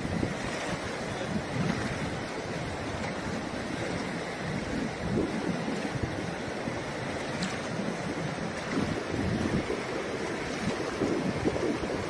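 Steady rushing of a fast, shallow mountain river over stones, with wind buffeting the microphone in uneven low gusts.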